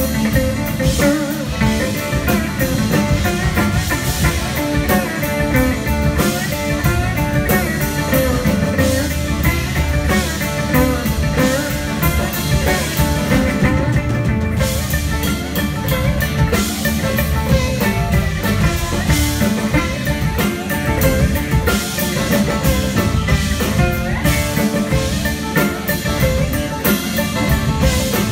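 Live band playing an instrumental break with no singing: mandolin, electric guitar, banjo and electric bass over a drum kit, loud and continuous.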